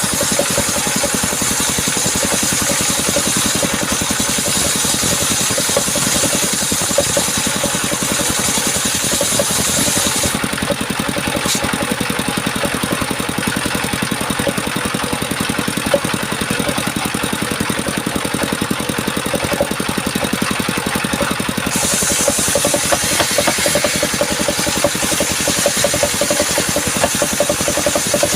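An engine-driven circular sawmill runs steadily throughout. A high hiss rides over the engine for roughly the first ten seconds and again for the last six or so, as the blade cuts through coconut wood, and drops away in between while the blade spins free.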